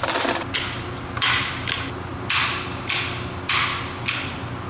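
Cross bolt safety of a Kel-Tec SUB-2000 being pushed back and forth through the polymer receiver by thumb: four short scraping slides about a second apart.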